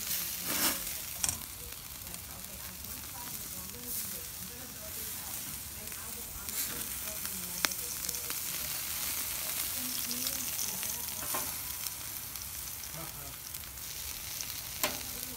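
Sausages and prawn skewers sizzling on a charcoal kettle grill: a steady hiss with a few sharp clicks and pops along the way.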